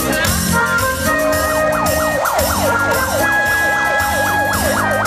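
A fire engine's electronic siren in fast yelp mode, its pitch rising and falling about three times a second, starting near the two-second mark, over keyboard music playing throughout.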